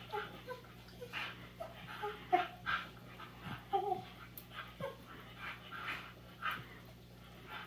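Rough Collie puppy making many short, high whines during rough play, with rustling of fur and couch cushions between them.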